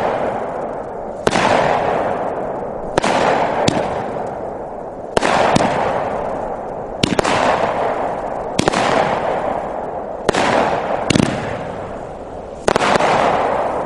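A 200-gram consumer fireworks cake (Dominator 'It's a Boy', 12 shots) firing shot after shot: sharp reports roughly every one and a half seconds, some in quick pairs, each followed by a long fading rush of noise.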